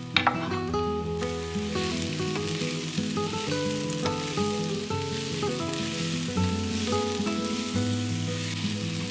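Food sizzling as it fries in oil in a pan, with a short clink of a utensil against the pan just after the start. Background music plays throughout.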